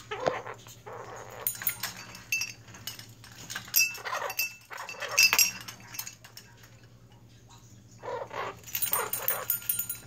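Blue-crowned conure giving short bursts of chattering squawks while clinking and jingling a metal bell toy. There is a quiet pause about six seconds in before more calls and bell rings.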